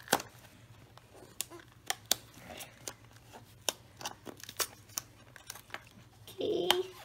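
Fingers picking, tapping and scraping at a small cardboard booster box while trying to work it open: a string of sharp, irregular clicks.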